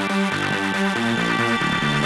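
Electronic background music: a quick, even run of low synth notes, several a second, over steady sustained higher tones.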